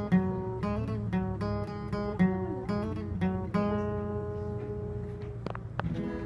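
Acoustic guitar strumming chords, with the last chord left ringing out for a couple of seconds, then two sharp clicks near the end.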